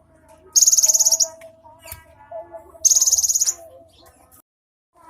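Cinereous tit (gelatik batu) singing: two loud, rapid, high buzzing trills about two seconds apart, each lasting under a second, with fainter chirps between them.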